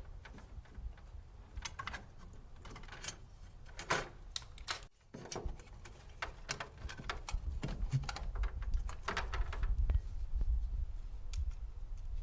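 Irregular light clicks, taps and rattles of a cover panel being handled and fitted into place on a cooler, over a low rumble.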